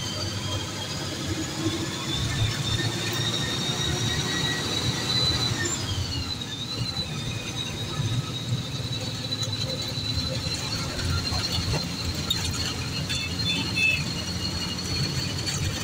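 A high-pitched whine over the engine and road rumble inside a moving bus. The whine drops in pitch about six seconds in, then holds steady.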